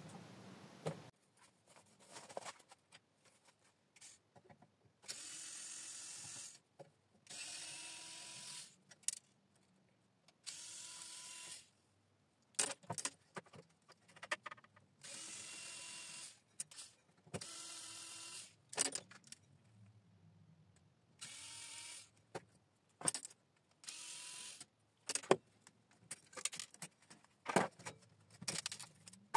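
Cordless screwdriver's motor running in short steady bursts of about a second and a half, six times, as screws are driven out of a three-phase electricity meter. Short clicks and clinks of small metal parts come between the runs, more often near the end.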